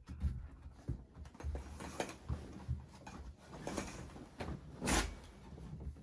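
Curtains being drawn open by hand: the runners scrape along the curtain track in a series of short, uneven pulls, with the fabric rustling and a few soft knocks. The loudest scrape comes about five seconds in.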